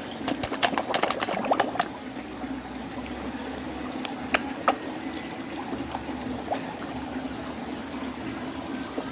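Carp at the pond surface making wet smacking pops as they gulp at the water: a quick flurry of pops in the first two seconds, then a few single ones. Steady water noise runs underneath.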